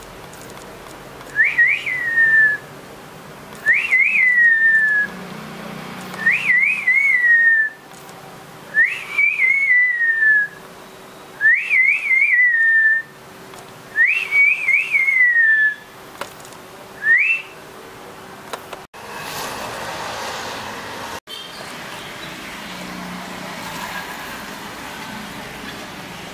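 Whistling: a short phrase that rises, warbles and glides down, repeated about every two and a half seconds, seven times, the last one cut short. Then the whistling stops and only a soft hiss remains.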